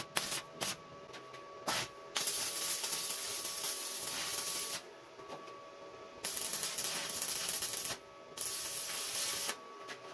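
Stick (arc) welding: the electrode crackles and hisses while tack-welding a steel part in place. There are a few quick arc strikes in the first couple of seconds, then three runs of steady crackling, each a couple of seconds long, with short pauses between.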